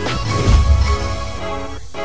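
Background music with a steady beat, a deep bass swell about half a second in.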